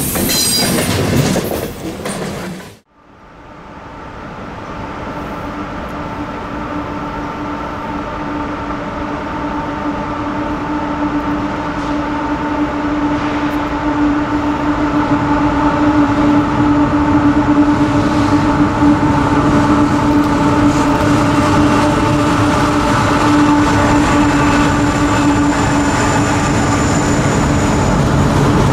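A freight train passing close fades out within the first three seconds. Then CSX diesel locomotives hauling a coal train drone steadily, with a constant engine hum, growing louder as they approach.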